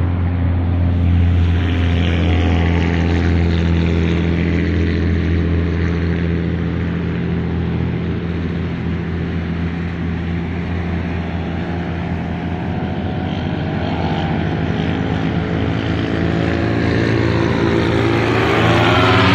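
Paramotor's propeller engine droning steadily in flight. Its pitch wavers in the middle, then rises and gets louder near the end as it comes overhead.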